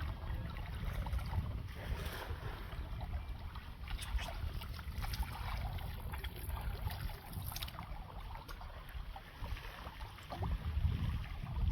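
Wind rumbling on the microphone outdoors by water, with scattered light splashes and clicks, most of them in the middle of the stretch.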